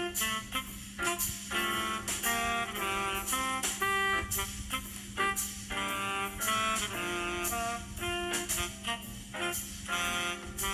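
A Xiaomi Mi 11 Ultra default ringtone playing: a melody of short pitched notes in quick phrases with brief gaps, over a steady low hum.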